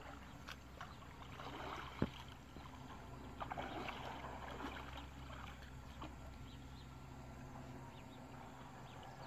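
Water sloshing and splashing as people wade through knee-deep water, with a single sharp click about two seconds in.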